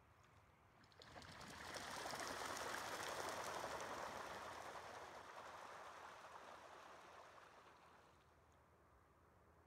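Ducks splashing across the lake surface as they take off together, starting abruptly about a second in and fading away over the following several seconds.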